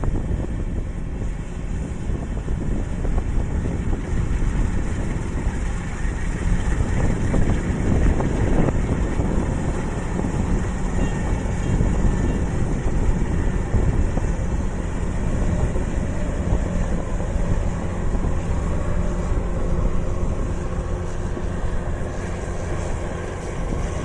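Kubota rice combine harvester's diesel engine running steadily, with wind buffeting the microphone.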